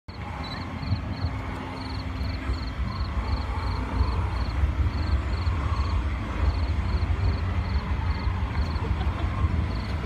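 Outdoor night ambience: a steady, fluctuating low rumble, with a faint high chirp repeating in short groups of about three.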